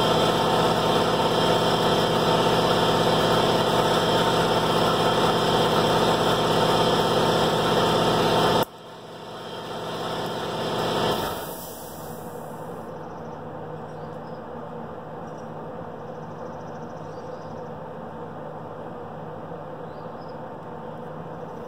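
Air compressor running steadily, then shutting off abruptly about nine seconds in, followed by a hiss that rises for a couple of seconds and stops, leaving a quieter steady hum.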